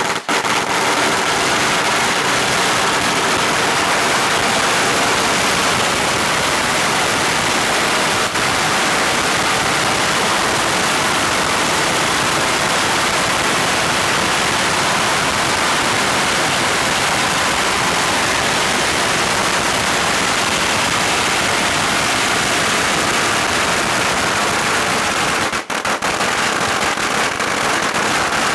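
A 16,000-count string of firecrackers going off on the ground, the bangs so dense that they run together into one continuous, loud crackle that barely lets up, with a brief dip near the end.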